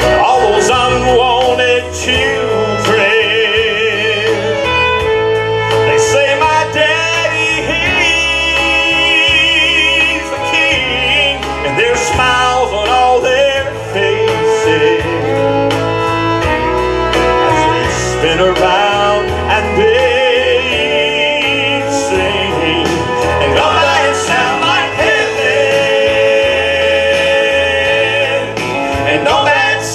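Male gospel vocal group singing live with instrumental accompaniment, the lead voice singing with a wide vibrato.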